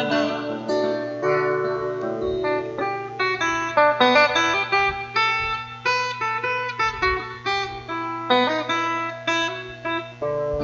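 Acoustic guitar playing an instrumental passage of a song, a run of plucked notes and chords, over a steady low tone.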